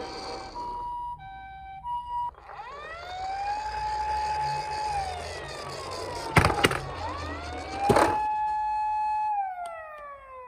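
Emergency vehicle sirens. First a two-tone high-low ambulance siren alternates for about two seconds. Then a wailing siren rises, holds and falls twice, with a few sharp knocks near the middle.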